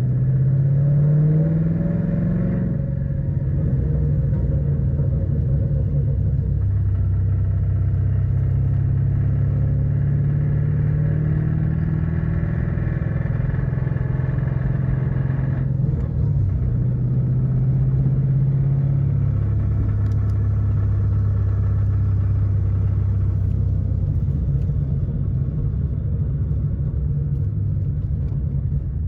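2013 Ford Mustang GT's 5.0 L Coyote V8 running steadily. It rises in revs over the first couple of seconds, then changes pitch a few times, dropping about two-thirds of the way through. The owner reports rod knock from this engine.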